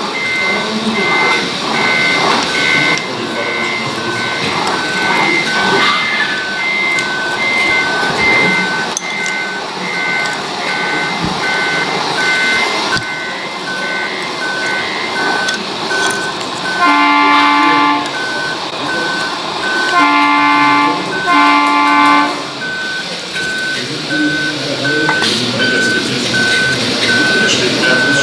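Sound modules of radio-controlled model trucks: two reversing beepers at different pitches beeping steadily, with three short horn blasts near the middle, over a running diesel-engine sound.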